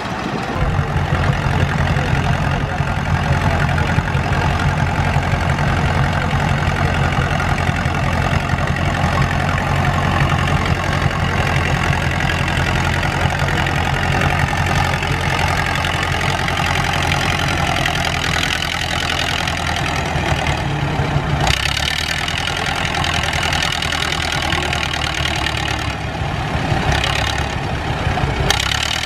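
Hanomag Barreiros R-545 tractor's diesel engine running steadily under load as it pulls a mounted plough through the soil. Its engine note shifts about two-thirds of the way through.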